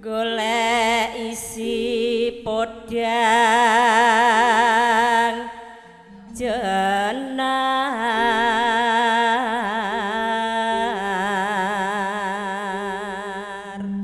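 Javanese sinden (female gamelan singer) singing long held phrases with heavy vibrato over sustained gamelan tones. Her voice breaks off for a moment around the middle and then resumes.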